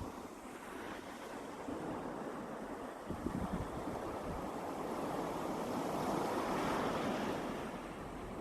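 Calm sea surf: small waves breaking and washing up the shore, the wash swelling a few seconds in and easing off near the end, with some wind on the microphone.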